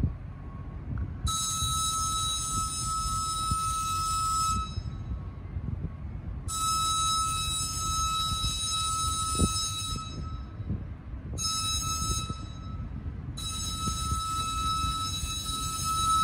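A single-note train horn sounding the grade-crossing signal: long, long, short, long. It comes from the leading rear car of a passenger train backing slowly over the crossing, with the train's low rumble underneath.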